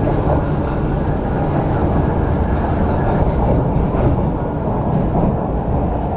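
CRRC Qingdao Sifang 'Q Train' electric multiple unit running between stations: a steady, loud rumble of wheels on rail and running gear.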